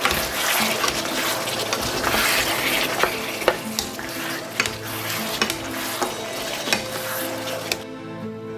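Pork ribs in a thick sauce sizzling in a pan while two wooden spatulas stir and turn them, with scattered knocks of the spatulas against the pan. The sizzling stops shortly before the end.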